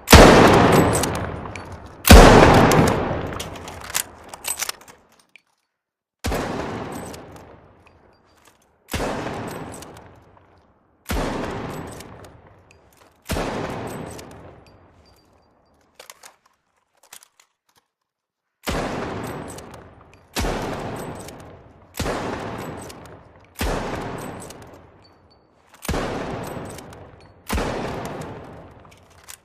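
SR-84 sniper rifle sound effect: about a dozen single shots, roughly two seconds apart, each with a long echoing tail that fades away. About halfway there is a pause of several seconds broken only by a few faint clicks.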